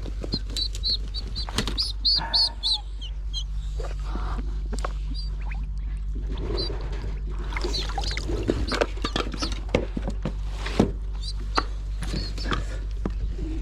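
Birds chirping in runs of short, high, repeated notes, with scattered sharp clicks and knocks, over a steady low hum.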